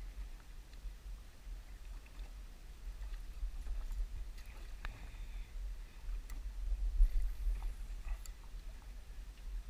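Water lapping against a small fishing boat's hull, heard as a steady low rumble, with a few faint clicks.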